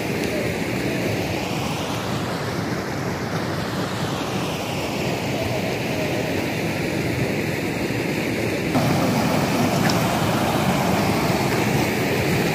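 Wind blowing across the microphone, a steady rushing noise that grows louder about nine seconds in.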